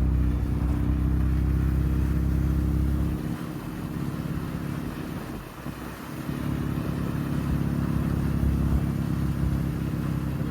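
Jeep Cherokee engine running and tyre and road noise while driving, heard from inside the cabin. The engine note drops away about three seconds in, as if off the throttle, and builds back up a few seconds later.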